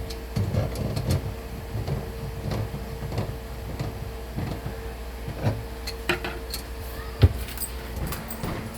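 Irregular knocks and clunks of parts and tools being handled while a kitchen sink and faucet are fitted, with one sharp knock about seven seconds in, over a steady hum.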